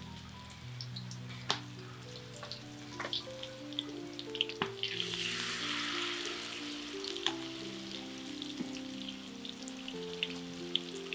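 Peyek teri batter of rice flour and anchovies frying in hot oil in a wok, sizzling with sharp pops and crackles. The sizzle swells about halfway through as more batter is spooned in.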